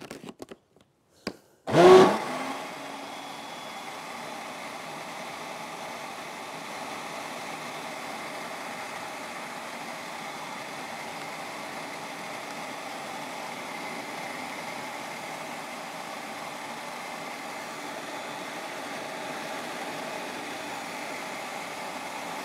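Countertop electric blender mixing a chocolate cake batter: after a few light clicks it is switched on about two seconds in with a loud burst, then runs steadily.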